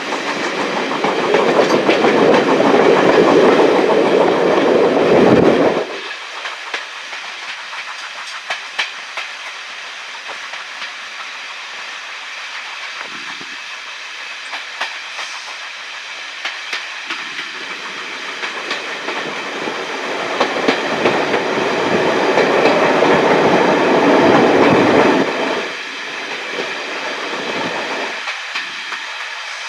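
Train running on rails, with sharp clicks of wheels over the track and a steady rush of noise that swells loudly for the first six seconds and again from about seventeen to twenty-five seconds, each time cutting off suddenly.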